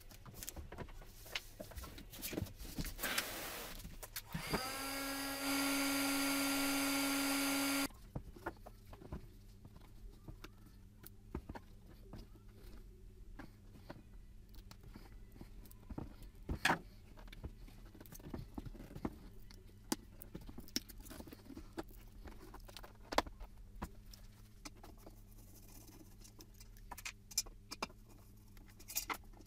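Heat gun switched on, its fan motor whining up to speed and then running steadily at a higher pitch for about two seconds before it cuts off abruptly. Rustling of cardboard comes before it, and afterwards there are scattered clicks and knocks of a screwdriver prying a plastic headlight lens open and parts being handled.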